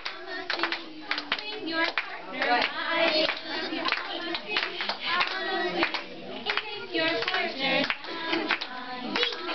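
Several people clapping their hands to a steady beat, with voices singing along.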